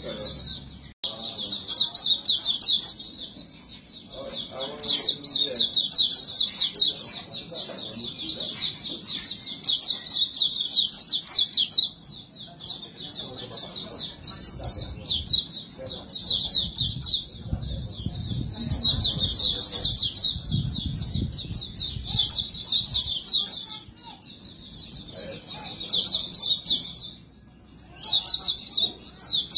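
White-eye (pleci) singing continuously: a fast, high, twittering song, broken only by a few short pauses, including one about a second in and one near the end.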